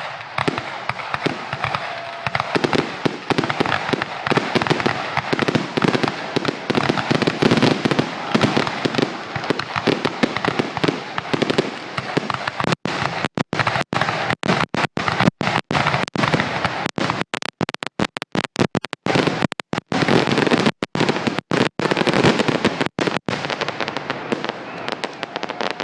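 Fireworks finale barrage: a dense, continuous run of overlapping bursts and crackling reports with no let-up. In the second half the recorded sound cuts out briefly again and again.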